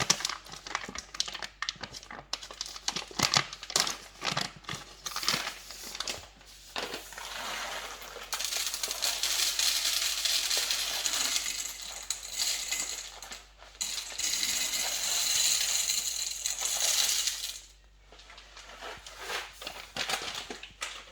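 A coffee bean bag crinkling as it is handled and opened, then whole coffee beans poured into the espresso machine's bean hopper in two long, steady rattling pours, with a few clicks near the end.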